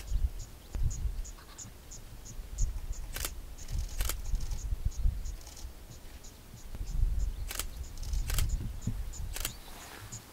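An insect chirps steadily in short high pulses, about three a second. Five sharp camera-shutter clicks sound over it, over a low rumble of wind or vehicle noise.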